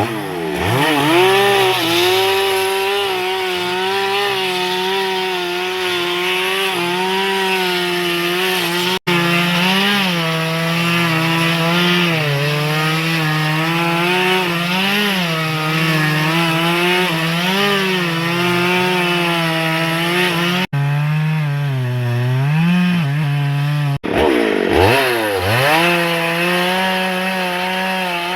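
Stihl MS 382 two-stroke chainsaw cutting into a large teak trunk at full throttle, its engine note sagging and recovering as the chain loads up in the wood. It revs up quickly from low at the start and again about 25 seconds in, and it cuts out abruptly for an instant three times.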